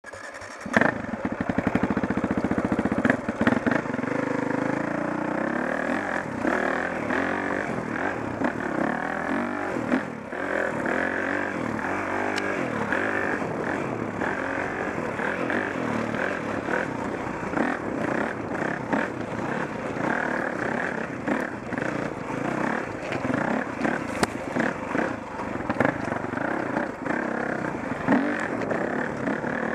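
Dirt bike engine being ridden along a rocky single-track trail, its pitch constantly rising and falling as the throttle is worked on and off. Now and then a sharp knock or clatter from the bike over rocks and roots.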